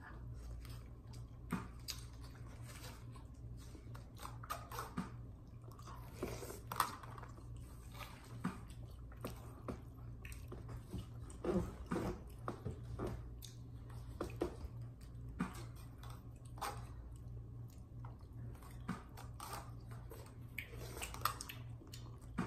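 A person eating chicken tinola soup with moringa leaves from a spoon: chewing, with irregular short wet mouth clicks and smacks, over a steady low hum.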